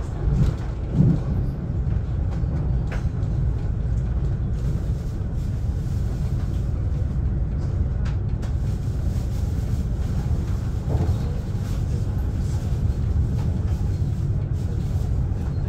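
Steady low rumble of a moving train heard from inside the carriage, with a few faint clicks.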